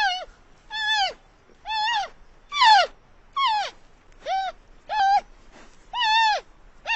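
An animal's call, repeated about nine times at roughly one-second intervals; each call is short and pitched, rising and then falling.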